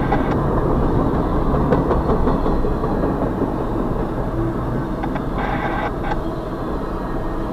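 Double-stack intermodal freight train passing close by, its wheels running steadily over the rails, with a brief higher-pitched tone about five and a half seconds in.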